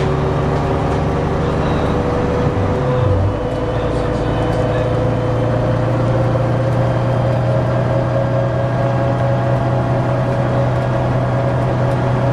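MCW Metrobus's Gardner diesel engine and Voith automatic gearbox running under way, with a shift in the engine note about three seconds in, then a steady drone with a whine that slowly rises in pitch.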